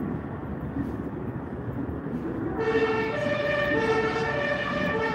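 Two-tone emergency vehicle siren cutting in about two and a half seconds in, alternating between a lower and a higher tone about every half second, over a steady background rumble.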